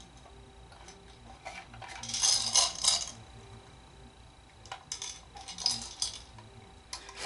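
A Lionel toy train tender being handled and turned over in the hands, giving clusters of light clicks and rattles, loudest about two to three seconds in and again around five to six seconds.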